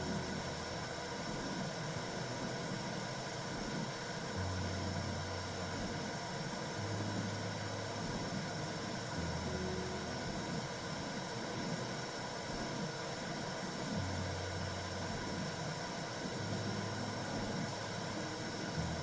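Simulated womb sound for soothing a baby: a steady whooshing rumble, with a deep hum underneath that shifts between two low pitches every couple of seconds.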